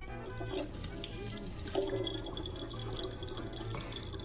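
Thin stream of water running from a tap into the open neck of a plastic bottle, a steady pouring sound.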